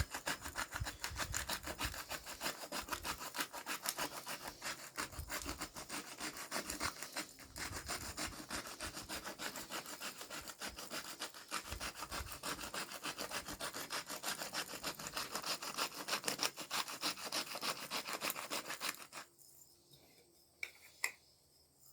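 Hand-twisted spice grinder grinding seasoning onto pork chops: a fast, scratchy rasping that runs steadily and stops about 19 seconds in, followed by a few faint clicks.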